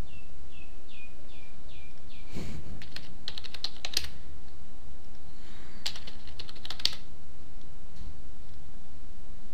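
Typing on a computer keyboard in two quick bursts of key clicks, about a second each, one around two and a half seconds in and one around six seconds in, over a steady low hum.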